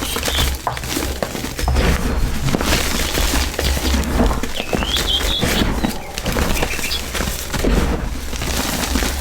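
Crisp, gritty crunching and crumbling as a brittle powdery block is crushed by hand, over a steady low rumble. A bird calls briefly near the start and again about five seconds in.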